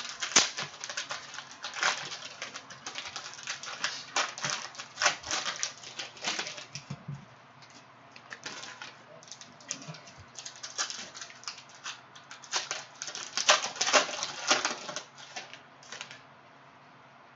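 A Panini Prizm basketball cello pack's plastic wrapper crinkles as it is torn open and the cards are pulled out. It comes as rapid crackling in two spells, with a quieter pause of a few seconds between them.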